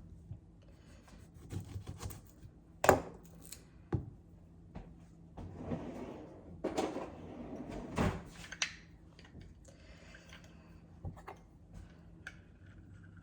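Kitchen prep sounds as a lemon is fetched and cut: a string of sharp knocks and clicks, with a stretch of soft rustling in the middle.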